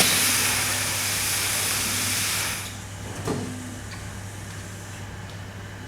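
Laundry steam press letting out a burst of steam: a hiss that starts suddenly and dies away after about two and a half seconds.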